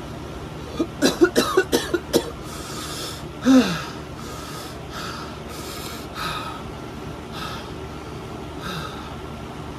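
A person coughing in a quick run of about six coughs, then a groan falling in pitch, then heavy breaths every second or so. This is the choking and gasping of a mouth and throat burning from an extremely hot pepper chip.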